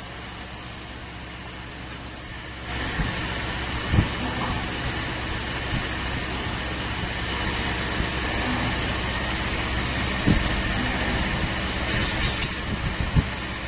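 Spring-forming machine running as it feeds and bends steel wire: a steady mechanical whir with a thin high whine that grows louder a few seconds in, broken by a few sharp knocks from the tool slides.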